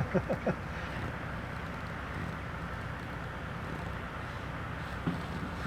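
Lorry diesel engine running steadily, a low hum heard from inside the cab. There is a single short knock near the end.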